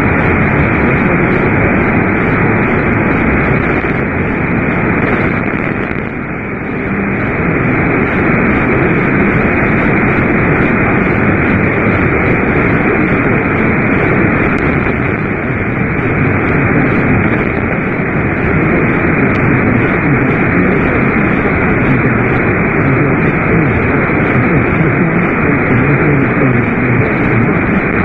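Steady radio static: a loud, even hiss from a radio receiver with no programme audio, with a brief dip about six seconds in.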